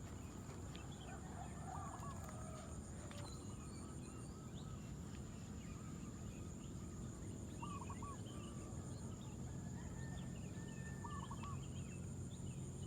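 Birds calling in the open: short groups of two or three quick arched notes come three times, among scattered faint chirps over a steady background hum.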